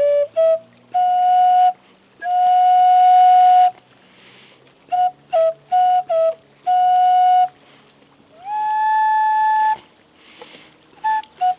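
Flute playing a slow melody of long held notes with short gaps between them, breathy in tone; about eight seconds in, one note slides up into a higher held note.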